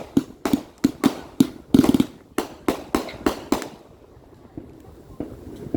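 A rapid barrage of firework reports, about three sharp bangs a second, each with a short echo, ending a little over halfway through.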